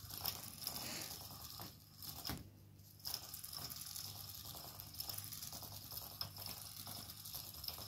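Motor of a battery-powered butterfly cat toy whirring and rattling as it swings the butterfly around on its wire. It stops with a click a couple of seconds in, then starts up again about a second later.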